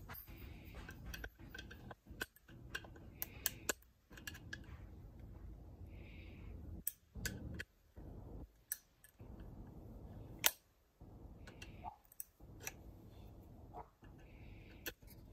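Hands working on a Valiant's vacuum brake booster: scattered clicks and light knocks of metal parts and tools being handled, with one sharper knock about ten seconds in.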